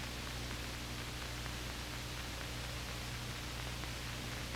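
Steady hiss with a low, even hum: the background noise of an old film soundtrack, with no other sound.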